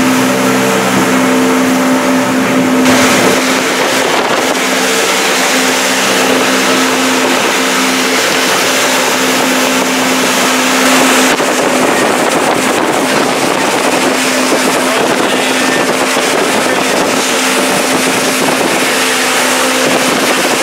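Motorboat under way at speed: the engine's steady drone under a loud rush of water churned up in the wake.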